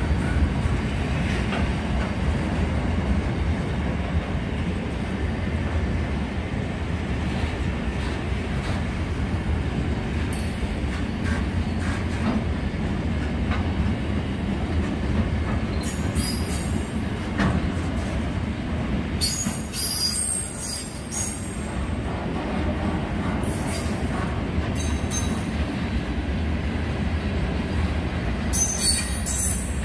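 Freight train of flat wagons passing at speed with a steady rolling rumble of wheels on rail. High-pitched metallic squeals break in repeatedly through the second half.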